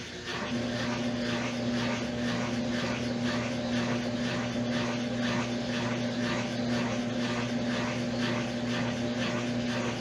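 Brastemp top-loading washing machine running on its spin cycle: a steady electric hum starts about half a second in, over a rhythmic swishing about twice a second. The machine is not spinning: its broken brake stays locked, so only the agitator turns and the basket stays still.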